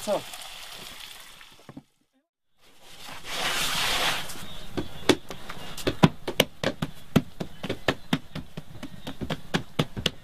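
A hiss fades out and breaks off, swells up again briefly, then gives way to a run of sharp, irregular knocks, several a second.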